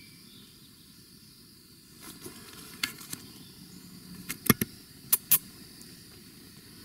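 Handling noise as the camera is picked up and moved: a run of sharp clicks and knocks with light rustling, loudest in a cluster of knocks about halfway through.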